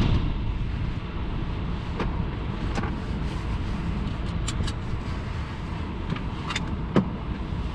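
Steady low rumble of a car driving, heard from inside the cabin, with a few sharp, scattered ticks.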